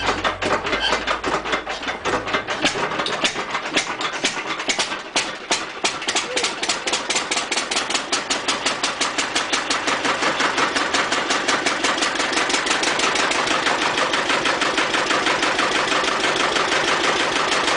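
Four-cylinder Lister diesel engine being hand-started: uneven knocks at first, then it catches and picks up into a fast, even running beat.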